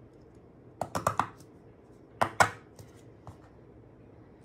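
Small 3D-printed plastic mechanism clicking as it is worked by hand: a quick run of about four clicks about a second in, then two sharper, louder clicks a little after two seconds.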